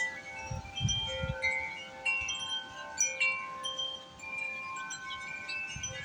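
Wind chimes ringing in gusty wind, struck again and again at irregular moments, with many overlapping notes that ring on long. Gusts rumble low on the microphone about a second in and again near the end.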